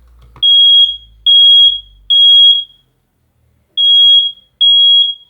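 First Alert smoke alarm sounding during a push-button test: loud, high-pitched steady beeps in the three-beep evacuation pattern. Three half-second beeps, a pause of about a second, then three more.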